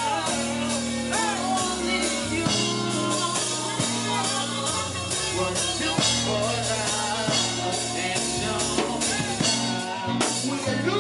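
Live go-go band playing: a bass line and dense drum and percussion hits, with a lead voice singing over them on a microphone.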